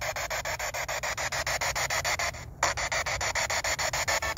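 Spirit box (ITC research device) sweeping through radio stations, its speaker putting out choppy static at about ten bursts a second. The static cuts out briefly a little past halfway, then carries on.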